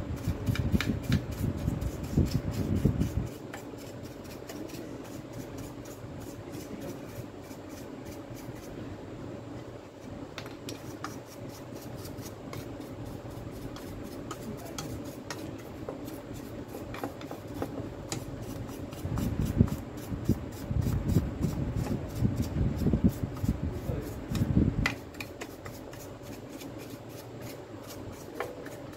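Small brass wire brush scrubbing the plastic housing half of a Makita DDF446 cordless drill clean, in quick back-and-forth scratchy strokes. The scrubbing is heavier and louder for the first few seconds and again for several seconds about two-thirds of the way through.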